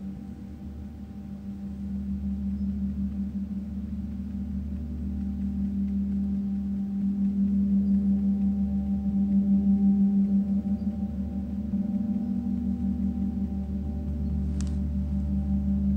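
Meinl Eight Corners of Heaven mirror gong sounding a sustained low hum, swelling to its loudest about two-thirds of the way through, then easing off. A brief high ring comes near the end.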